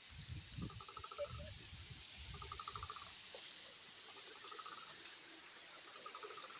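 Steady hiss of the flowing river, with a short trilling animal call of about a dozen rapid pulses repeating four times, roughly every second and a half to two seconds. Low thuds of walking come through in the first three seconds.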